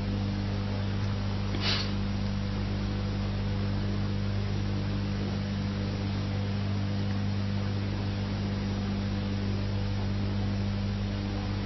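Steady electrical mains hum, a low buzz with constant background hiss, from an old recording's audio track. A brief soft noise comes about two seconds in.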